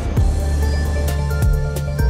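Electronic background music with deep bass hits and a regular drum beat.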